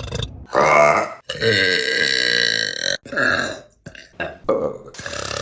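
Women burping: a short burp, then one long, drawn-out burp of about a second and a half, then a few shorter burps near the end.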